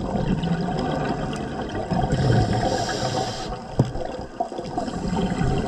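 Scuba regulator breathing underwater: a hissing inhale through the demand valve alternating with the rushing gurgle of exhaled bubbles, with one sharp click a little past halfway.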